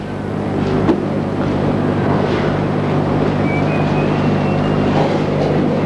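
Steady low electrical hum and rumbling background noise, with one sharp click about a second in.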